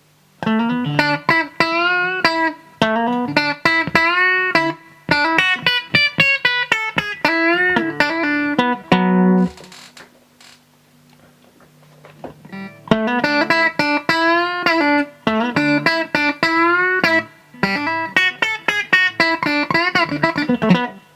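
Clean electric guitar lead lines with string bends, a Fender Telecaster's bridge pickup through a DOD FX80-B compressor sustainer with its controls at mid settings, into a Fender Super 210 tube amp. Two runs of quick notes, with a pause of about three seconds near the middle where only the amp's steady hum is heard.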